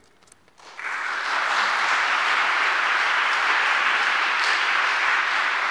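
Audience applauding, starting a little under a second in and holding steady.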